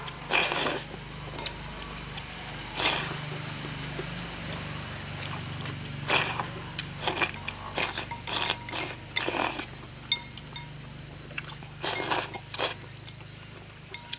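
A person slurping noodles and broth from a bowl: repeated short slurps, some in quick runs of two or three.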